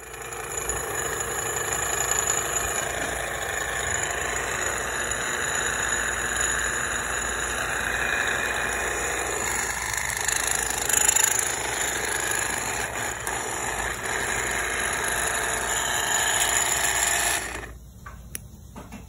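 A steady, loud mechanical running noise with some rattle, like a small motor or power tool at work, that stops abruptly near the end.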